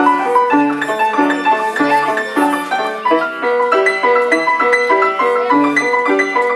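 Piano played solo: a steady melody of single notes over a regularly repeating bass note in the left hand.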